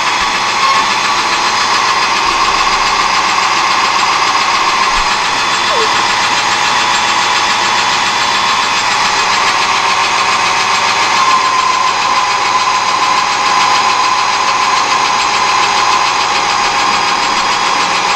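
Metal lathe running with a boring bar cutting inside a spinning steel workpiece: a steady machine sound with a steady whine from the cut.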